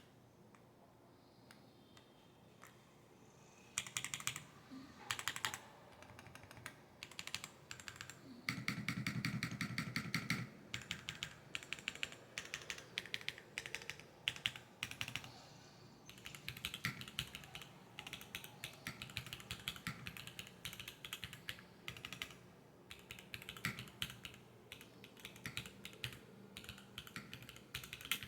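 Typing on an LM60 V2 mechanical keyboard with Akko Cream Yellow V3 linear switches, its case damped with silicone seals and pins. Quick runs of key presses start about four seconds in, with a fast, dense flurry of keystrokes a few seconds later.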